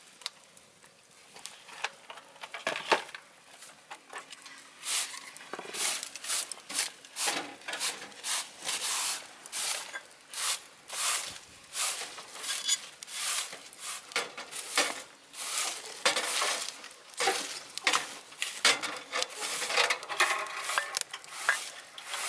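Wood fire burning in a wood-burning stove, fed with scrap timber and crackling with irregular sharp snaps and pops. The snaps are sparse at first and come thick and fast from about four seconds in.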